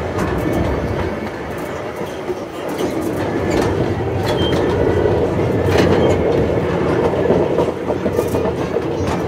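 Brackenridge Park miniature train running on its track: a steady rumble with scattered short clicks from the wheels on the rails.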